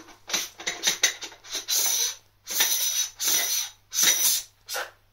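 Handling of a William Optics Zenithstar 103 refractor telescope: a run of short scraping and rubbing sounds, about eight in a row, as the tube and its fittings are gripped, turned and fitted.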